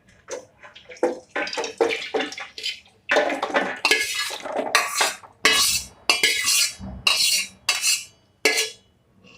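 Kitchen utensils clattering and scraping in a run of irregular knocks and scrapes as sugar-soaked amla segments and their syrup are tipped into a sieve over a vessel to drain off the syrup.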